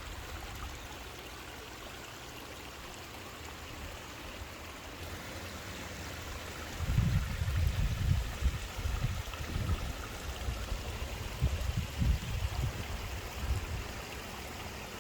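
Storm runoff rushing and trickling in a steady wash of water noise. From about halfway in, irregular low rumbles on the microphone come and go over it.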